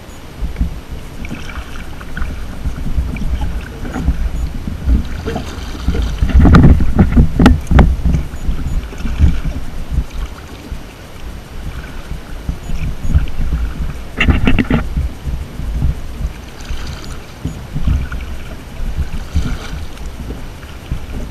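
Kayak paddle strokes dipping and splashing in lake water every couple of seconds, the loudest splashes about six to eight seconds in and again near fifteen seconds. Wind buffets the microphone underneath as a steady low rumble.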